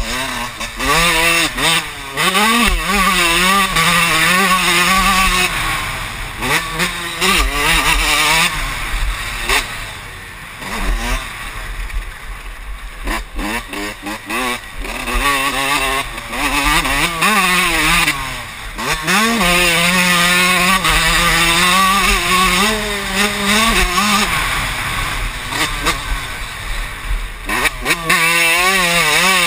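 Motocross bike engine revving hard and easing off again and again, its pitch climbing through each gear and dropping back as the throttle closes for corners, heard from on board the bike.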